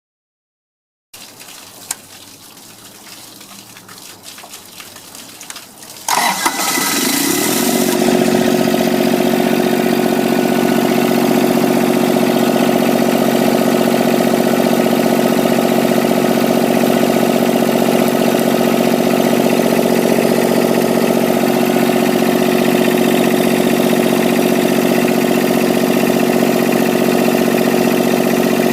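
Phasor diesel marine generator engine starting about six seconds in, after a few seconds of quieter noise with a click. Its pitch rises for a second or two as it comes up to speed, then it runs steadily.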